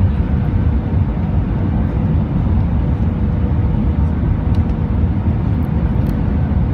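Airbus A319 cabin noise from a window seat: a steady low rumble of engines and airframe, with faint steady engine tones above it.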